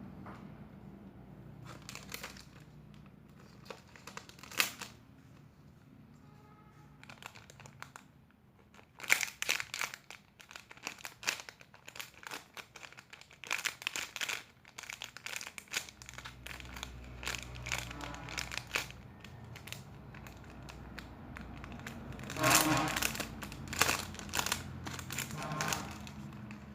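Plastic crinkling and crackling in irregular bursts as squishy toys are handled and squeezed, busiest in the middle and again near the end.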